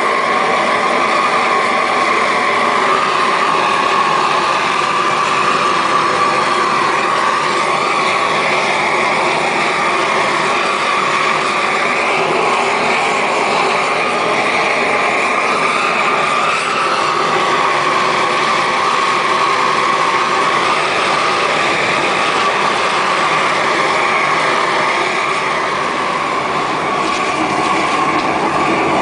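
Propane roofing torch burning steadily at an even level, its flame heating the underside of a modified-bitumen torch-down roll so that the melted bitumen bonds it to the layer below.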